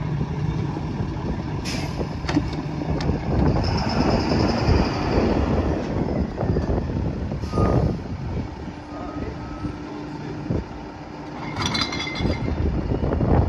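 Freightliner M2 rear-loader garbage truck running and pulling up to a stop, its diesel engine rumbling steadily, with two short air-brake hisses, about two seconds in and again past the middle. Near the end a burst of knocking and clatter as a plastic wheelie bin is tipped into the rear hopper.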